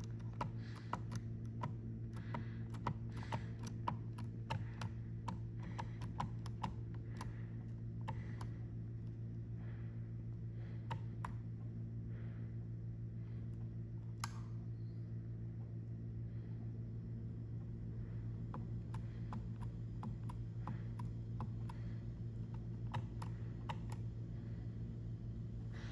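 Furnace draft inducer motor running with a steady hum and irregular sharp clicking from inside its housing. The clicks are frequent at first and thin out about halfway. The owner takes the noise for a dead bird lodged in the draft inducer motor housing.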